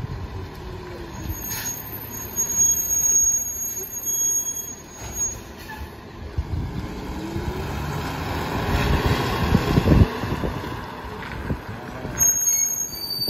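Freightliner rear-loader garbage truck's diesel engine running, revving up with a rising pitch around the middle, with a high-pitched squeal at times and a few thuds of trash bags landing in the hopper.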